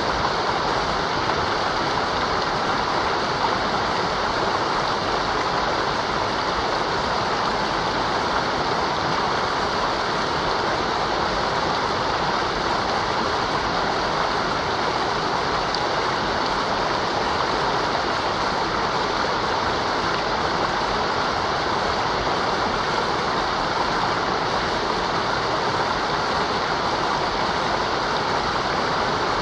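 Mountain river running over rocks: a steady, even rush of flowing water.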